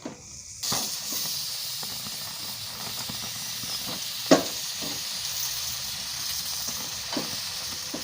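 Whole limes on forks charring over a gas stove flame, with a steady hissing sizzle as the peel blackens. The sizzle starts suddenly about half a second in. Small crackles run through it, and one sharp pop comes about four seconds in.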